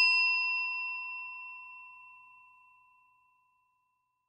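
A bell-like ding sound effect ringing with a clear, high tone, fading away over about two seconds.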